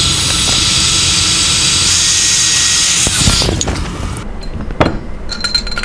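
Heat gun blowing hot air with a loud, steady hiss onto the crankshaft bearing in an aluminium chainsaw crankcase half, warming it to about 120–150 °C so the crankshaft will slip in. The hiss cuts off about four seconds in. A sharp metal click and a short ringing clink follow as the crankshaft is fitted into the bearing.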